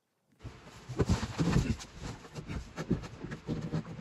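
Irregular knocks and bumps from handling the wooden cyclone and its plastic ducting as they are settled into position, starting about half a second in.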